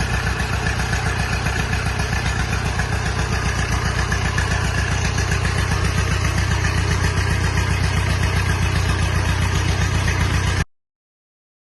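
Tractor engine idling steadily with an even firing beat. The sound cuts off abruptly near the end.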